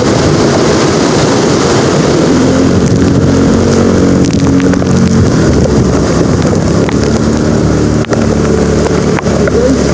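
Typhoon wind buffeting the microphone over heavy rain. A low, steady hum rises through the noise for a few seconds at a time in the middle.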